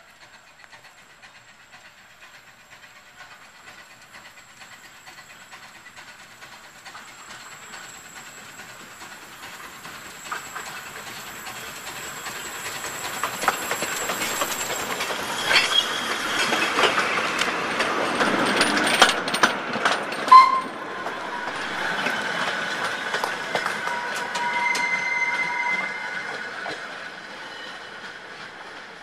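A narrow-gauge light railway train passing. It grows louder for several seconds, is clicking over the rail joints at its loudest, and then fades away, with a few brief high squeals as it goes.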